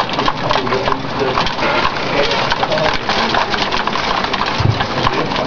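Hailstones striking a window pane: a dense, constant clatter of small ticks against the glass.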